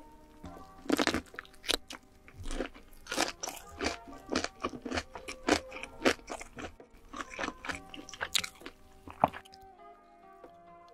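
Close-miked, ASMR-style crunching of crispy fried chicken being bitten and chewed: a string of sharp, irregular crunches, the loudest about a second in and just after nine seconds. Soft background music plays underneath.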